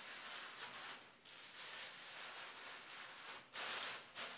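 Thin plastic grocery bag crinkling and rustling as it is pulled and tucked snugly over the head by hand, with a louder crinkle about three and a half seconds in.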